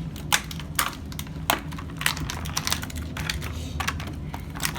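Toy packaging being torn apart by hand: a run of irregular sharp crackles and snaps.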